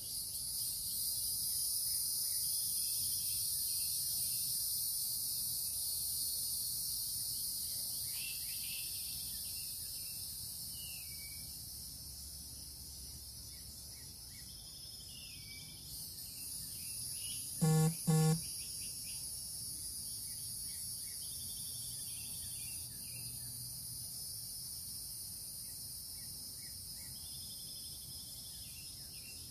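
Outdoor insect chorus with a steady high-pitched drone and scattered bird chirps. About halfway through, two short, loud beeps sound in quick succession.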